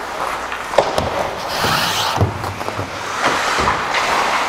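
Ice hockey skates scraping and carving on rink ice, with a longer hissing scrape about halfway through, a few sharp clacks, and dull thumps.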